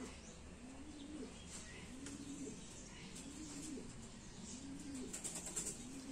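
Pigeon cooing in a steady series: low rising-and-falling coos about once a second, with a faint rustle near the end.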